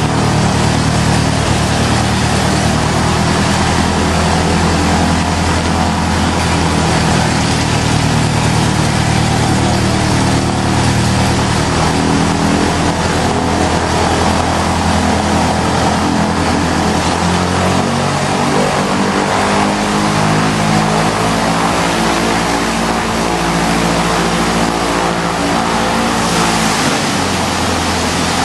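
Light aircraft piston engine and propeller of a newly built Van's RV running steadily during its first engine run, the engine speed shifting slightly a few times.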